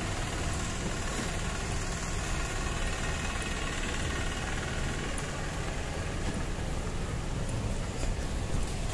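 Vehicle engine idling nearby: a steady low rumble over street noise.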